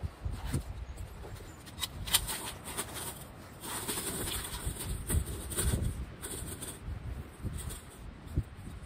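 Handling noise from a corrugated metal windscreen being stood up in the snow, played back sped up: scattered knocks and clicks with rustling and hiss between them.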